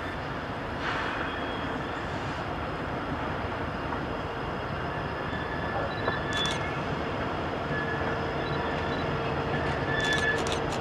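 CSX SD70MACe and ES44AH diesel-electric locomotives running at low speed as they pull a loaded coal unit train, a steady engine and rolling-train rumble. A few sharp clicks come about six seconds in and again near the end, and a faint steady whine joins from about eight seconds in.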